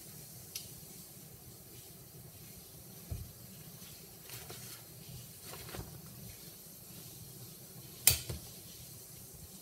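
A large umbrella being handled, with a few faint knocks and rustles, then one sharp snap near the end as it is pushed open and its canopy springs taut.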